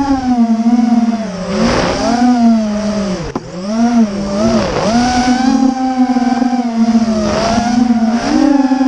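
Brushless motors and propellers of a Dongah Mobilon FPV 250 racing quadcopter whining, the pitch dipping and rising as the throttle changes, with a sharp drop and recovery about three and a half seconds in.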